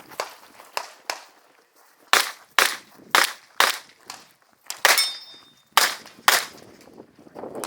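Revolver fired rapidly in pairs of shots about half a second apart: seven loud shots, with fainter shots before them.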